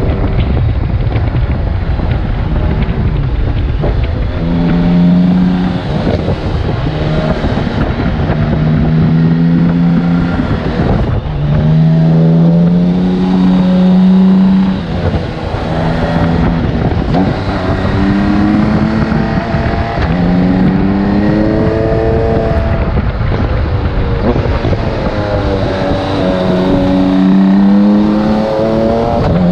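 BMW K1600GTL's inline-six engine running while the motorcycle is ridden, its pitch rising and falling again and again as the rider accelerates and eases off. There is a dense rushing noise underneath.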